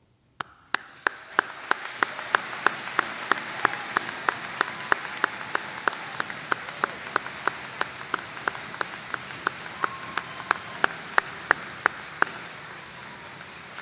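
Audience applauding, swelling up within the first second and fading near the end. Sharp claps close to the microphone stand out above the crowd, about three a second.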